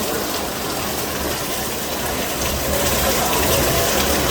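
Heavy rain falling, a steady rushing hiss with water gushing, growing a little louder about three seconds in.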